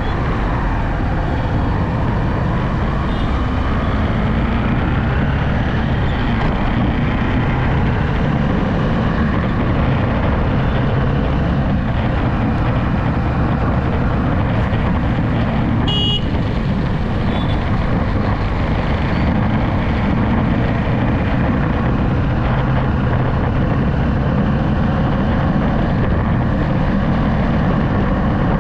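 Steady road noise of a vehicle cruising on a highway: a constant low engine hum mixed with tyre and wind rush. About halfway through there is one brief high-pitched beep.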